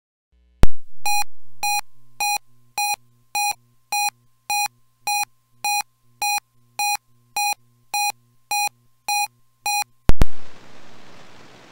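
Weather radio alert signal: a sharp click, then about sixteen evenly spaced mid-pitched electronic beeps, a little under two a second, over a faint steady tone. Just after ten seconds a second loud click cuts in and steady radio static hiss follows.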